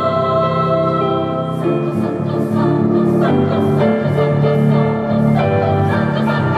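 Women's choir singing in parts, holding a chord at first, then moving from about two seconds in into a quicker, rhythmic passage.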